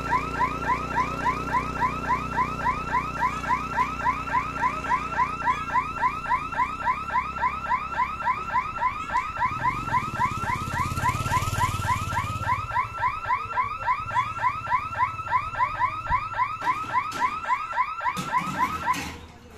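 Level-crossing warning hooter sounding a rapid electronic chirp, repeating about three times a second, signalling that the gate barriers are closing; it cuts off abruptly near the end once the booms are down. A motorcycle engine passes about ten seconds in.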